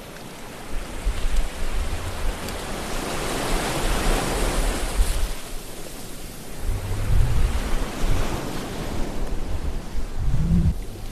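Ocean waves washing in, a steady rush of surf that swells and falls back every few seconds.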